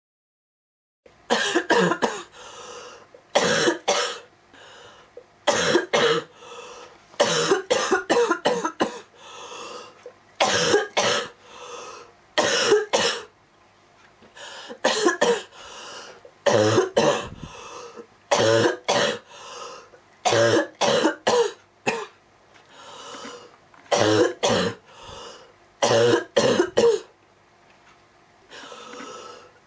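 A girl's very rough cough from a worsening cold: fit after fit of two to four coughs in quick succession, with softer breaths drawn between them, starting about a second in.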